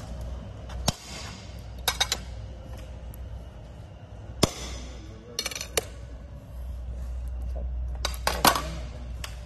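Scored glass pieces snapped apart by hand along their cut lines and set down on the glass cutting table, giving a series of sharp cracks and glass clinks. The sharpest comes about four and a half seconds in, with clusters around two, five and a half and eight and a half seconds, over a low steady hum.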